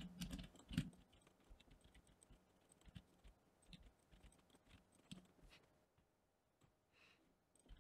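Faint, scattered clicks of a computer keyboard and mouse as shortcut keys and mouse buttons are pressed, over near silence.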